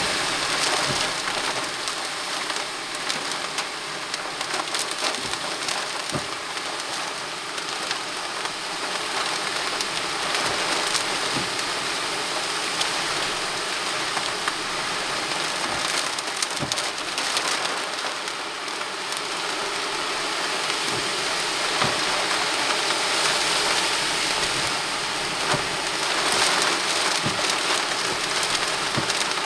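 Rain striking a window pane: a steady hiss of rain with many sharp single drop hits, growing a little louder after about twenty seconds.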